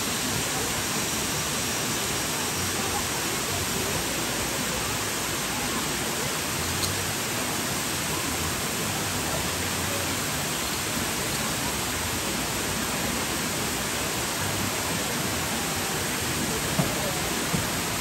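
Steady, even rushing noise that holds the same level throughout.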